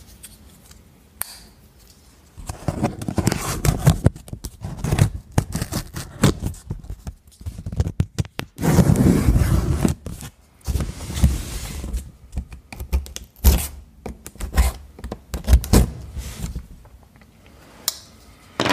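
A large cardboard shipping box being opened and handled: irregular scraping, tearing and rustling of cardboard and packing tape, with sharp knocks, and a longer stretch of scraping and rustling about nine seconds in.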